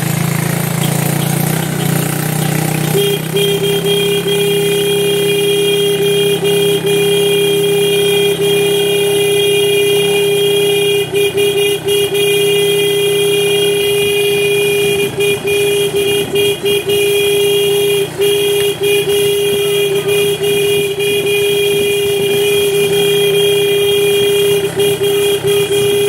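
Vehicle horn held in one long steady note from about three seconds in, broken by a few short gaps. Before the horn starts, a low engine hum is heard.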